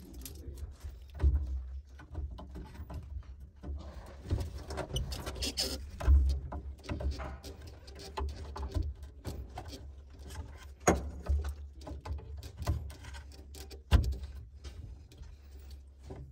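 Wiring harness and its plastic connectors being handled and fitted at an excavator's controller panel: a run of irregular rustles, clicks and knocks. Sharper knocks come about a second in, about eleven seconds in, and loudest about two seconds before the end.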